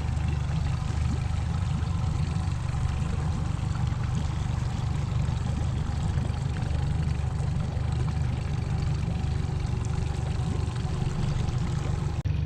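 Motorboat engine running steadily, a continuous low rumble with water and wind noise over it.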